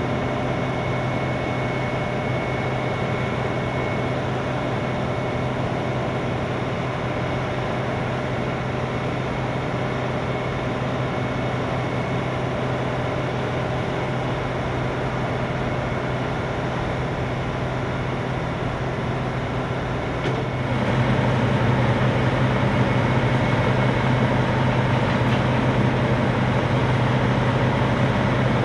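Heavy machinery: the Vermeer D500x500 horizontal directional drill's engine running steadily with a deep hum. About two-thirds of the way through it steps up louder and stays louder.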